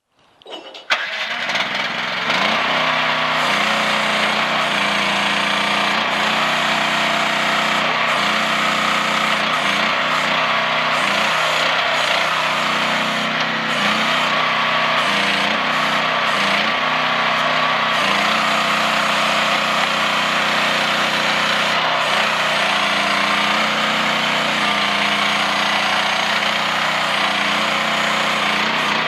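CFG H12R mini excavator's small engine starting about a second in and then running steadily, its pitch shifting slightly now and then.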